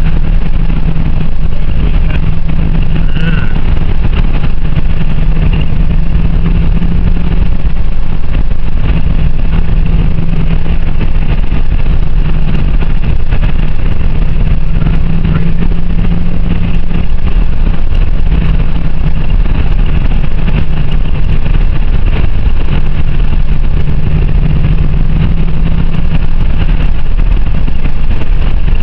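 Car driving at a steady pace: a loud, constant engine drone and low road rumble, without changes or distinct knocks.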